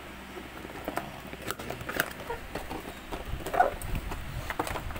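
Cardboard box and paper being handled: scattered light taps, clicks and rustles as the box is opened and a paper manual is slid out, with one sharper knock about three and a half seconds in.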